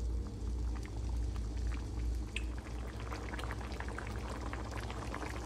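Pork and black bean stew boiling in a wok, small bubbles popping and crackling over a steady low hum.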